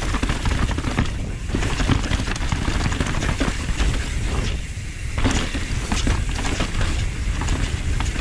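Mountain bike riding down a rough dirt trail: a dense, irregular clatter of the bike rattling over rocks and bumps, over a heavy rumble of wind buffeting the microphone.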